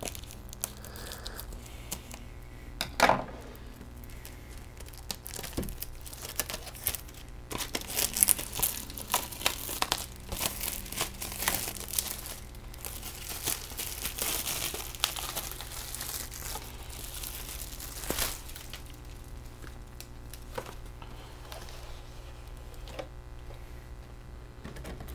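Factory-sealed packaging of a VHS box set being torn open by hand, crinkling and crackling, with a sharp click about 3 s in. The crackling is densest from about a third of the way in to just past the middle, then thins to lighter handling noises.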